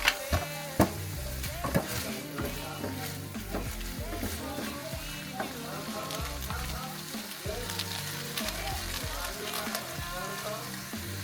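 Ground beef sizzling as it browns in a frying pan, stirred with a utensil, with a few sharp knocks in the first two seconds.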